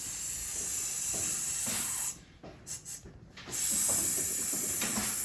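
Tap water running onto hands being washed, in two stretches with a break of about a second and a half between them.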